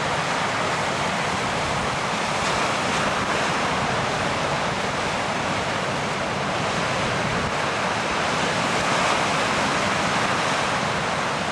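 Sea surf breaking and washing over a rocky shore: a steady, even rush of white water.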